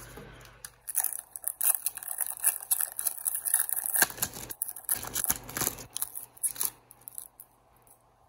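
Foil trading-card pack being torn open and its wrapper crinkled: a run of quick rips and crackles for several seconds that stops about seven seconds in.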